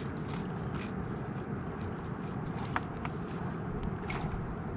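Steady outdoor background noise, heaviest in the low range, with scattered small clicks and one sharper click nearly three seconds in.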